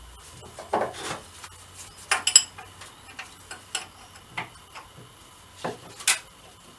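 Irregular light clinks and knocks of small metal objects being handled, with the loudest about a second in, about two seconds in and near the end.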